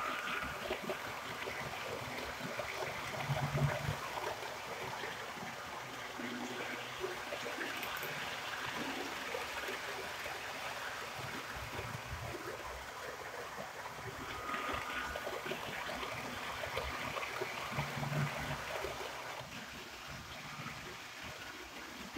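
HO-scale model train, an FS E444 electric locomotive hauling UIC-X coaches, rolling along the track: a steady rushing rattle of small metal wheels on rail, with a couple of louder bumps, easing off near the end as the train moves away.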